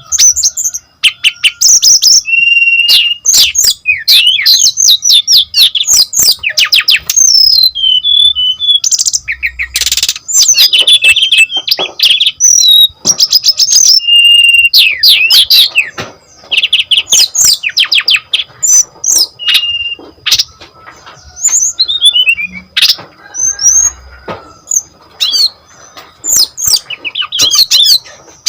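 Brown-chested jungle flycatcher singing loudly and energetically: a fast, varied song of quick trills, gliding whistles and sharp chirps in phrases broken by short pauses.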